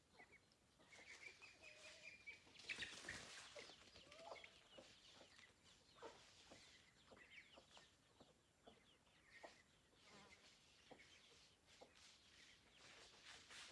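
Faint clucking of free-ranging chickens, with scattered high chirps of small birds. A brief rustle about three seconds in is the loudest moment.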